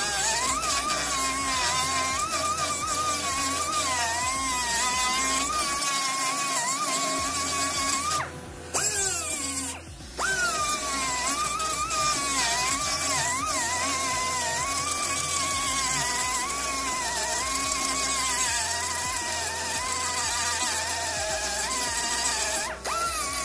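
Power grinder grinding rust off steel body panel metal: a high whine whose pitch sags as it is pressed into the metal and climbs again as the load comes off. It breaks off briefly twice about a third of the way in, then spins back up.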